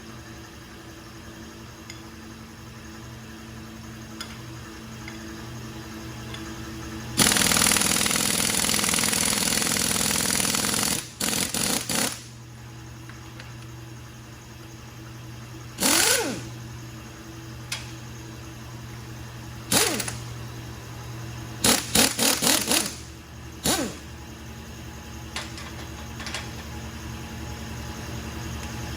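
A power tool, likely a pneumatic tool, run in bursts during teardown: one long run of about four seconds, then several short bursts, over a steady low hum.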